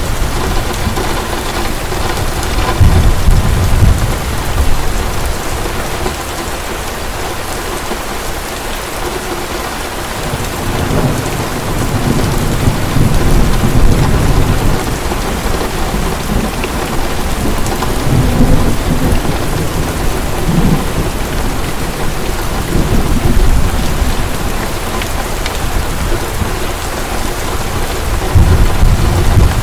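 Heavy rain pouring steadily, with thunder rumbling low in long swells several times, the strongest a few seconds in, in the middle, and near the end.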